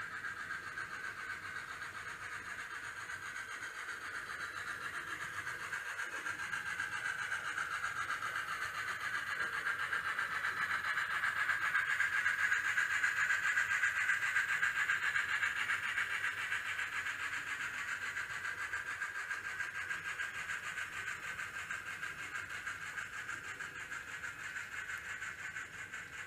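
N scale model Challenger steam locomotive running along the track. It gets steadily louder toward the middle as it passes close, then slowly fades as it moves away.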